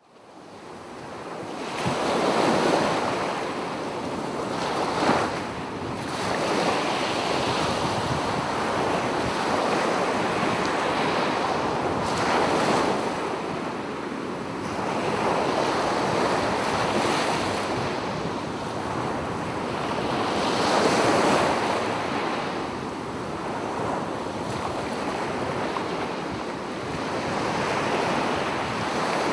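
Ocean waves breaking and washing up on a sandy beach, a continuous surf that swells and recedes every few seconds. It fades in over the first couple of seconds.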